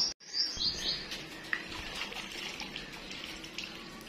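A quick run of short, high bird chirps at the start, cut off by a brief dropout, then a steady hiss with scattered faint clicks and chirps.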